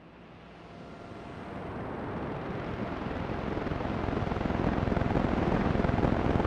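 A deep rushing rumble with no clear pitch that swells steadily louder, fading in from near silence: the opening of a dark ambient soundtrack.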